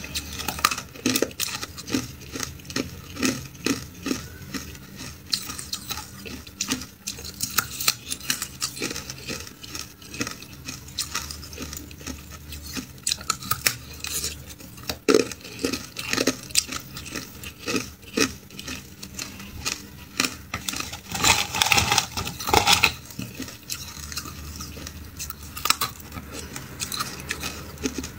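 Hard clear ice being bitten and chewed close to the microphone: a dense, irregular run of sharp cracks and crunches, with chunks of ice clinking against each other. The crunching is loudest a little past two-thirds through.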